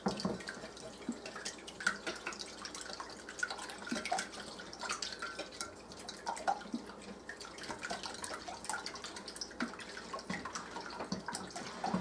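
Eggs and milk being whisked in a bowl by hand: quick, irregular liquid slapping and light clicks of the whisk against the bowl.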